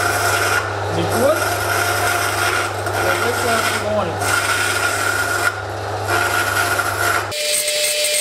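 Band saw converted from a metal-cutting saw, motor humming steadily while its blade rasps through a wooden board in short cuts with brief pauses. The owner finds it runs at only about 1800 rpm, too slow for wood. The sound cuts off abruptly near the end.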